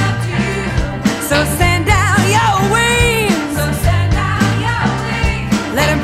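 Northern soul band recording: a steady beat and bass line under a melody line, with a wavering held note near the middle.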